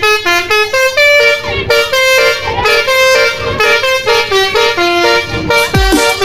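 Basuri telolet bus horn playing a fast tune of short, stepped notes. Near the end electronic music with thudding bass beats comes in.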